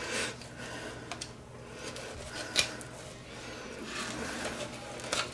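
Knife slicing and scraping through a mangrove snapper on a plastic cutting board as the fillet is cut free, with scattered faint scrapes and a sharp tap about two and a half seconds in.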